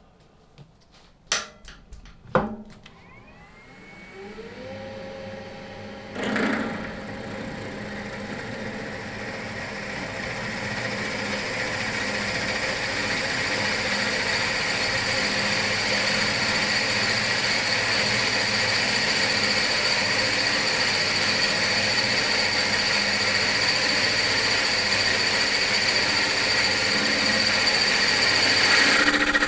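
Two sharp clicks, then an electric drill motor starts and runs steadily with a high whine, the cutting noise growing gradually louder as the bit drills a tapping hole in metal.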